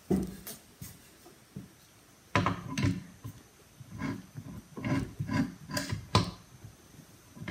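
A wooden board and a metal tool being handled and set in place at a drill press: a string of irregular knocks, clunks and clicks, wood bumping on wood and metal.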